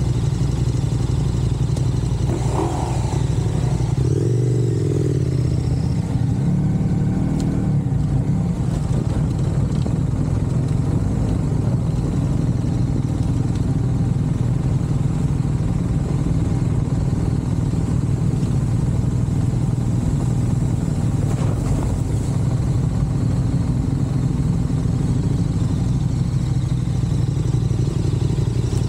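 A vehicle engine running steadily under way, with a constant low rumble and a few faint pitch glides in the first several seconds.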